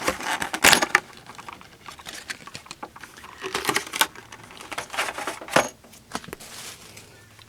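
Small hard plastic Beyblade parts clicking and clattering as they are handled, in irregular clusters of sharp clicks.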